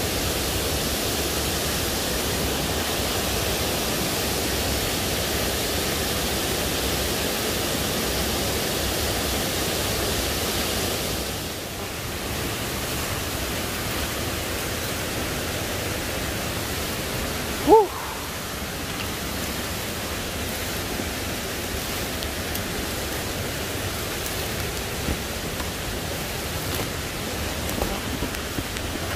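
Steady rushing of a waterfall, a little quieter after about twelve seconds, with one short pitched call about two-thirds of the way through.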